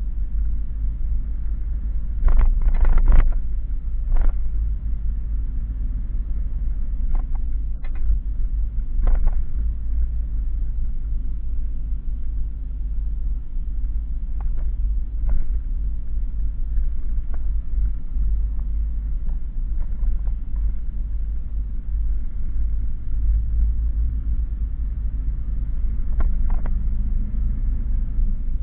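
Steady low road and engine rumble inside a moving vehicle's cab, with a few short knocks and rattles.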